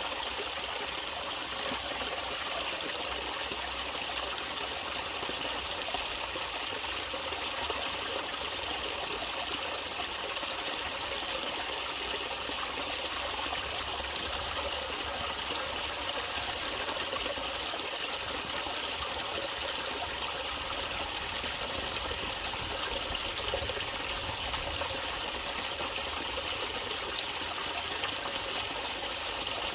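Natural stream water trickling and running steadily.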